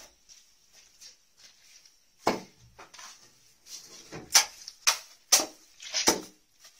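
A steel plastering trowel working wet mortar against a concrete wall and floor: about five sharp knocks and scrapes, starting about two seconds in, over a faint steady high hiss.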